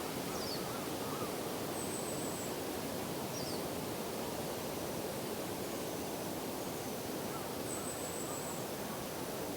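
Steady outdoor background noise with a few faint, thin, high-pitched wild bird calls: two short falling chirps and two brief, very high buzzy notes.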